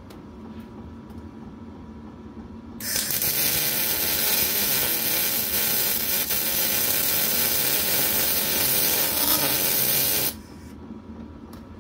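Gas-shielded MIG welder laying a weld bead on steel: the arc's steady crackling hiss starts about three seconds in, runs for about seven seconds and cuts off sharply as the trigger is released.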